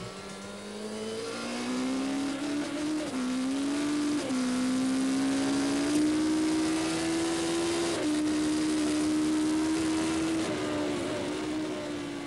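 Racing motorcycle engine at high speed, heard from an on-board camera. It holds a high, steady note that climbs slowly, with a few short dips and steps in pitch, over a rush of noise.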